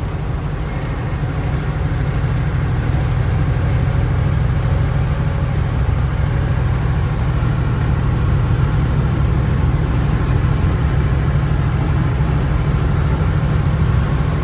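Steady low engine and road rumble heard from inside the cab of a semi-truck driving at highway speed.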